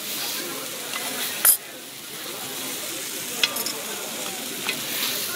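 Monjayaki batter sizzling on a hot iron teppan griddle while small metal spatulas scrape and tap on the plate. A few sharp metal clicks break through, the loudest about one and a half seconds in.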